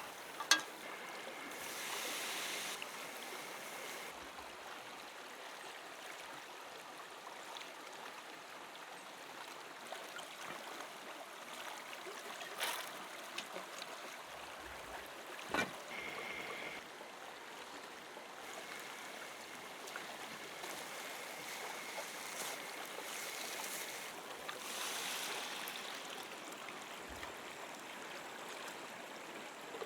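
River water flowing steadily, with a few sharp clicks, such as from cookware, at moments through it.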